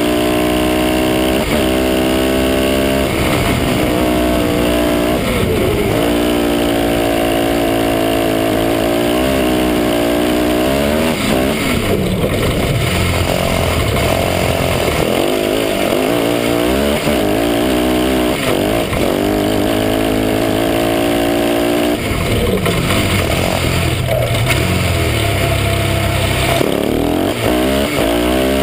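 Husaberg 650 cc single-cylinder four-stroke engine of a crosskart, heard from the driver's seat, under hard driving. Its revs climb and fall back again and again as the kart accelerates and slows for corners, with rougher, noisier stretches a little before halfway and again near the end.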